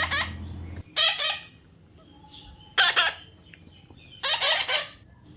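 A young parrot squawking four times in short calls, roughly a second and a half apart.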